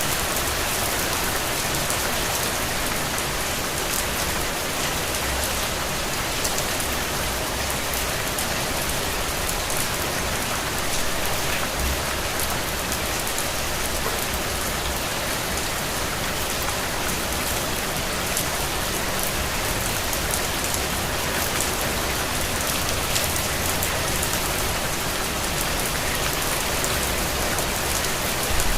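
Steady rain falling on a surface, a dense even patter of many drops with no let-up.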